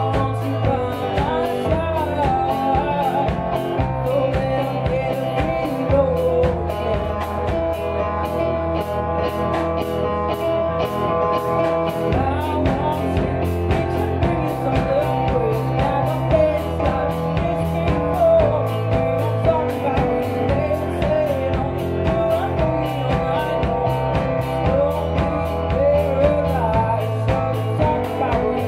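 Live rock band playing: a woman singing lead over electric guitar, electronic keyboard and a drum kit keeping a steady beat.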